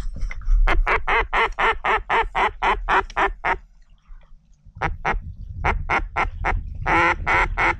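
A mallard duck call (манок) blown in a fast run of about a dozen quacks, roughly four a second, then after a short pause a few more quacks, the loudest near the end. It is a hen-mallard calling sequence meant to turn passing ducks toward the decoys.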